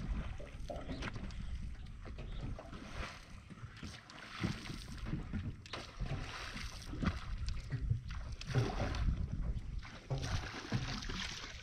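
Sea water slapping and sloshing against a boat's hull in irregular surges every second or two, with wind buffeting the microphone.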